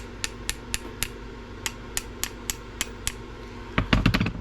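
Light, sharp taps, about four a second, then a quick flurry of louder, heavier knocks near the end.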